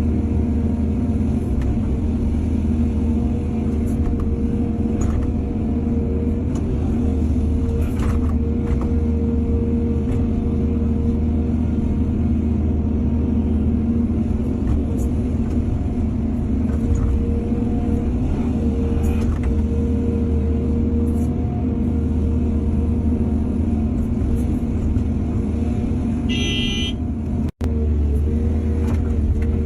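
Heavy diesel excavator engine running steadily under load, with scattered knocks and clanks from the digging and loading of soil. A short high-pitched tone sounds near the end, and the sound cuts out for an instant just after it.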